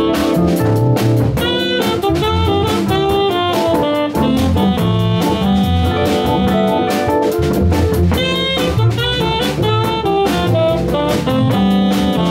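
Live jazz combo playing: a tenor saxophone plays a melodic line over held drawbar-organ chords, with archtop electric guitar and a drum kit keeping time.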